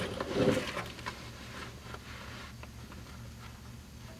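Gloved hands handling a small sheet-metal patch piece against a car's wheel arch: rustling with a few faint taps and scrapes, loudest in the first second, over a low steady shop hum.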